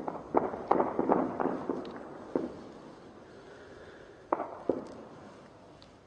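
Heavy gunfire: a rapid run of shots in the first two and a half seconds, then two more single cracks about four and a half seconds in, each with a short echo.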